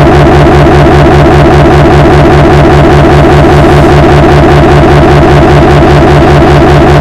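Extremely loud, distorted looping sound with a fast, even, repeating pulse, pushed to full volume.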